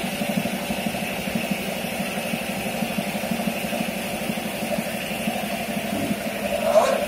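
Two-head automatic servo liquid filling machine running: a steady mechanical hum with a fast, even pulse, and a brief louder swell near the end.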